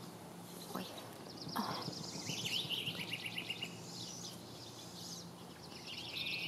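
Rapid, trilling series of high calls from a small wild animal, in two bouts: one starting about one and a half seconds in and ending in a falling run of notes, another near the end. A faint steady hum lies underneath.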